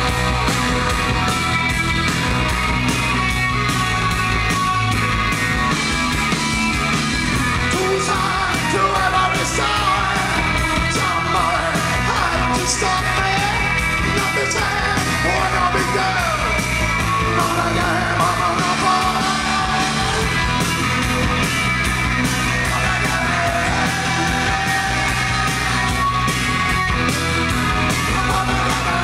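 Live post-punk band playing through the venue's PA: electric bass and drums driving steadily, with a man's shouted, half-sung vocal over them, strongest in the middle stretch.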